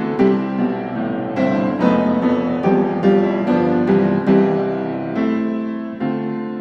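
Background piano music: single notes struck at an unhurried pace and left to ring over sustained chords.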